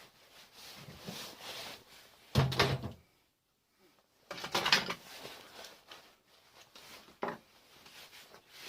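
Knocks and clatter of parts being pried and pulled off a microwave being stripped for scrap, with three louder clattering knocks about two and a half, four and a half and seven seconds in.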